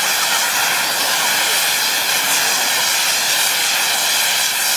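Firework gerb (fountain) spraying sparks from the neck of a lancework champagne-bottle set piece: a steady, loud rushing hiss.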